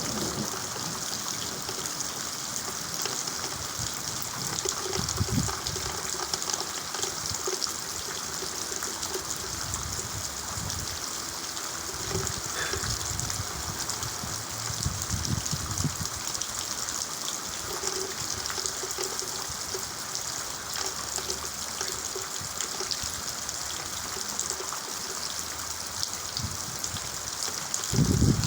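Steady rain with water running and trickling, an even hiss, with soft low rumbles now and then and a louder rumble at the very end.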